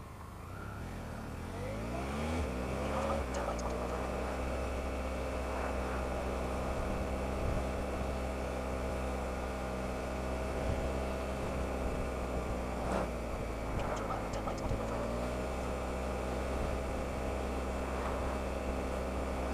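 Triumph Explorer motorcycle's three-cylinder engine running under way. Its note rises as the bike pulls away in the first couple of seconds, holds fairly steady, then drops briefly about two-thirds through and climbs again.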